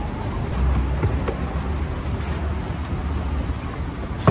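Steady low rumble of street traffic, swelling briefly about half a second in as a vehicle passes, with a few faint clicks.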